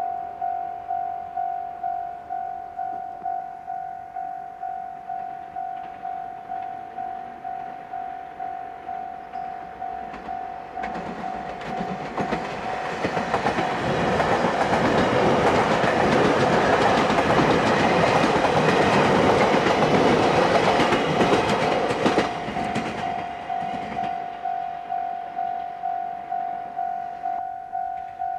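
Japanese level-crossing warning bell ringing steadily at just under two strokes a second. About eleven seconds in, a train passes through the crossing with a loud rush and clatter of wheels on rail joints, drowning the bell for about twelve seconds before the bell is heard again.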